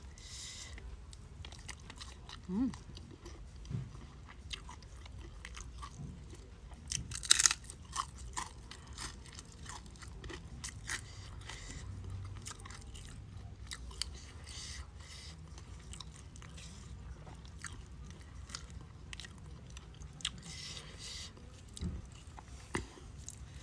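A person eating close to the microphone: chewing and crunching food, with many small wet mouth clicks. There is one louder crunch about seven seconds in.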